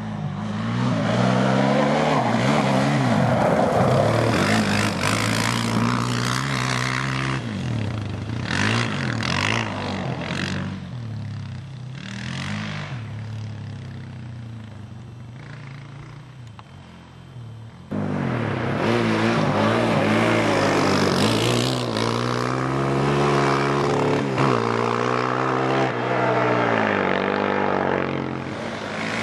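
Arctic Cat DVX 400 quad's single-cylinder four-stroke engine revving up and down through the gears as it is ridden hard, then fading as it moves away. About eighteen seconds in the sound cuts abruptly back to loud, close revving.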